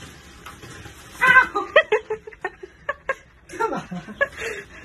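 A person's voice in short pitched bursts, about a second in, around two seconds and again near the end, over a low steady background.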